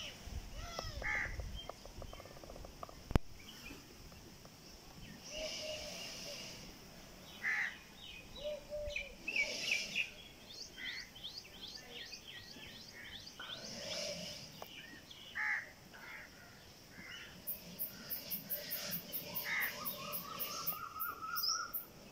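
Birds calling and chirping, several at once, with runs of short repeated calls and a rising series of notes near the end. A single sharp click about three seconds in, and a fast, very high ticking over the last few seconds.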